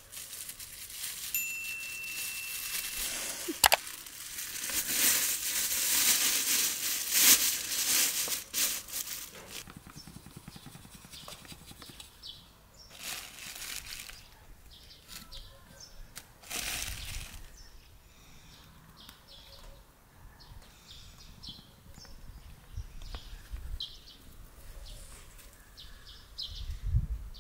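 Plastic bags of flour crinkling and rustling as they are handled, loudest in a long stretch during the first third, then a few shorter rustles.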